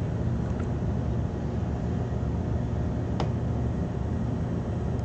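Steady background room noise: a low hum with an even hiss, with a single faint click about three seconds in.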